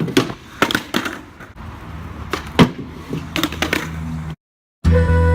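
Skateboard being ridden: several sharp clacks of the board and trucks hitting the ground over a low rolling rumble of the wheels. The sound cuts out briefly near the end, and then music starts.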